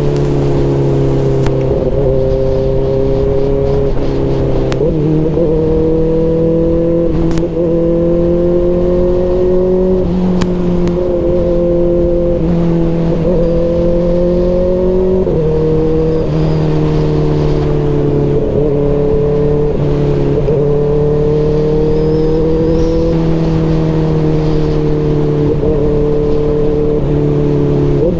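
Kawasaki Ninja ZX-4RR inline-four engine through an aftermarket SC Project CRT exhaust, running steadily under way. Its pitch climbs slowly and drops sharply several times.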